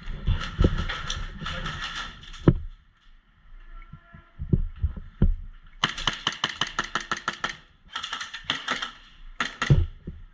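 Airsoft guns firing on full auto: bursts of rapid, evenly spaced clicking shots. There is a burst in the first couple of seconds, a longer one in the middle, and two short bursts near the end.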